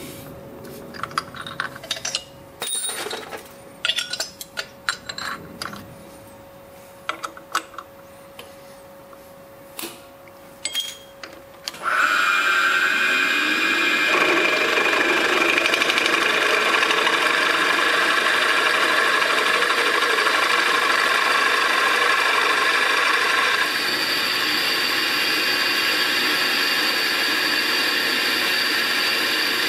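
Metal clicks and taps as a drill bit is fitted and the drill chuck tightened with a chuck key, over a faint steady hum. About twelve seconds in, the milling machine spindle starts and the drill bit cuts steadily into the aluminium BMW motorcycle cylinder head, drilling the hole for a second spark plug; the sound steps down slightly about two-thirds of the way through.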